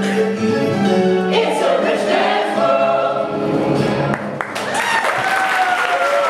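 Stage-musical cast singing in chorus with instrumental accompaniment, ending on a final held chord about four and a half seconds in. Audience applause and a falling whoop start right after.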